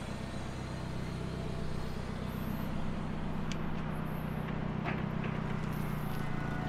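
Forklift engine running steadily while it sets down a heavy load, with two light clicks about three and a half and five seconds in.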